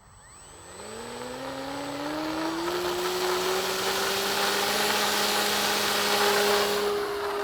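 Electric brushless motor and propeller of an RC warbird throttling up: a whine that rises in pitch and loudness over about three seconds, then holds steady at high power with a rushing propeller sound. This is typical of a takeoff run and climb-out.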